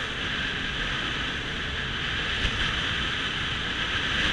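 Small open boat under way: a steady rush of wind and water with a low rumble underneath.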